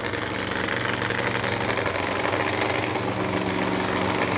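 Alcohol funny car engines running at a steady pitch, slowly getting louder.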